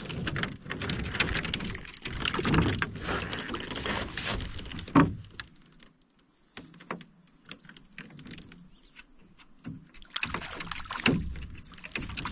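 Knocks, scuffs and rattles of a person shifting about inside an aluminum canoe, busiest in the first few seconds, with one sharp knock on the hull about five seconds in and more clattering near the end.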